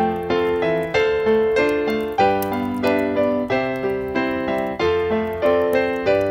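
Piano music: notes struck in a steady flowing rhythm, about two or three a second, over held chords.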